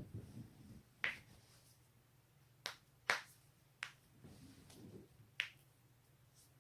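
Human joints being cracked: a series of about six sharp pops a second or so apart, the loudest about three seconds in, with soft rustling between them.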